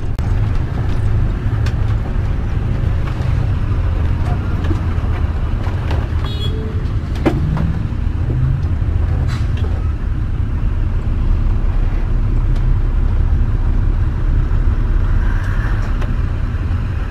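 Steady low engine rumble heard inside the cab of a bus-based motorhome creeping through heavy traffic, with a few short clicks.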